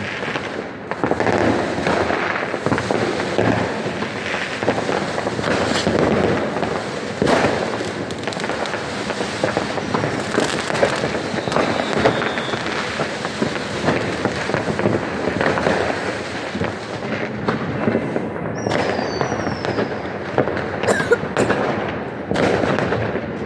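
Dense, unbroken crackling and banging of many fireworks and firecrackers going off at once, with a few short whistles gliding in pitch.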